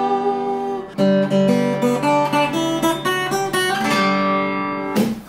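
Acoustic guitar being strummed: a ringing chord, a fresh strum about a second in, a run of shorter changing notes, another strum near four seconds, and a last sharp stroke just before the playing stops.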